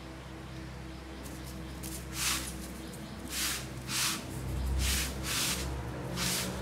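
A kitten hissing in short sharp bursts, about six times from two seconds in, the defensive warning of a cat ready to fight, over background music with steady low notes.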